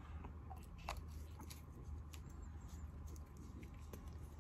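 Faint, scattered light clicks and small rustles of tools and materials being handled at a fly-tying vise while a jig is tied, over a low steady hum.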